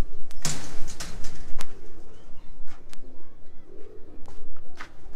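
Domestic pigeons cooing, with sharp clicks and a loud burst of rustling about half a second in.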